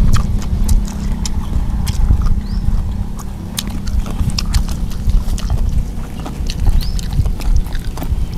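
Close-miked chewing and lip smacking of people eating rice-paper rolls of papaya salad, a quick irregular stream of wet clicks over a steady low rumble.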